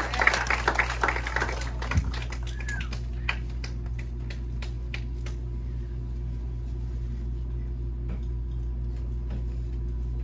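Audience applause tapering off over the first two seconds, then scattered claps and small clicks over a steady low hum.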